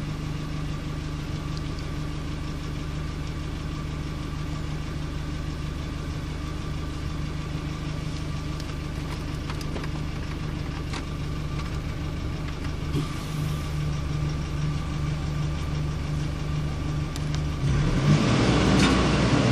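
Nissan Navara's 2.5 dCi YD25 four-cylinder turbodiesel idling steadily, warm and ready for a service DPF regeneration. Near the end the engine noise grows louder and rougher.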